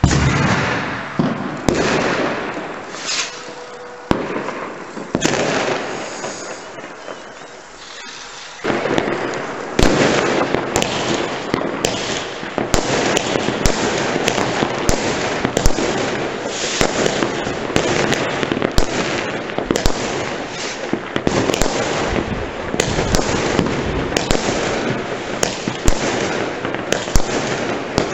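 Fireworks going off: a few separate bangs and fizzing bursts at first, then from about a third of the way in a dense, continuous barrage of crackling bangs.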